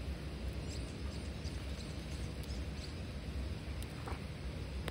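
Small campfire of twigs and paper burning under a steel grill grate: a steady low rumble with a few faint crackles, and some faint high chirps about a second in.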